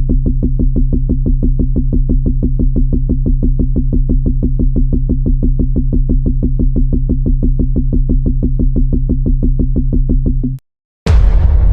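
Synthesized electronic sound effect: a low buzzing tone chopped into rapid, even pulses, several a second, that cuts off suddenly near the end. After a brief silence, a sudden loud blast with a rumbling tail.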